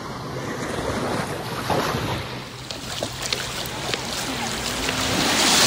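Sea waves washing ashore, with wind buffeting the microphone; a wave surges loudest near the end.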